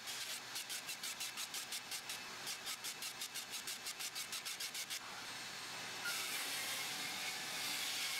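Skil PWRCORE 20 XP 2x20V rear-handle circular saw cutting through 2x12 lumber. For the first five seconds the sound pulses evenly, about five times a second; from about six seconds in it becomes a steadier, louder hiss.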